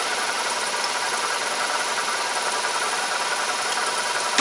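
Myford Super 7 lathe running steadily, a continuous even whir with faint steady high tones and no knocks.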